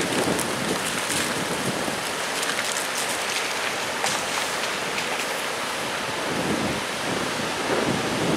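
Choppy hurricane surf breaking and washing, with gusty wind buffeting the microphone in uneven low rumbles.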